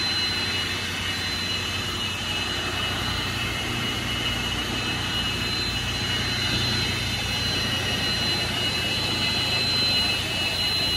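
Automatic car wash running, heard from inside the car's cabin: a steady roar with a thin, high whine held over it.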